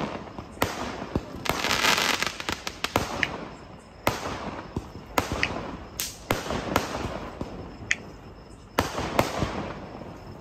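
Fireworks going off: many sharp bangs at irregular intervals, with a dense stretch of crackling about two seconds in.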